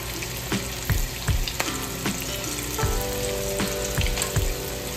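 Chicken shami kebabs shallow-frying in hot oil in a frying pan: a steady sizzle with frequent irregular crackling pops.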